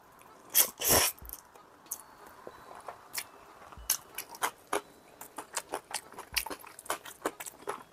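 Eating sounds: a couple of loud slurps of instant noodles about half a second to a second in, then wet chewing with quick, irregular clicks.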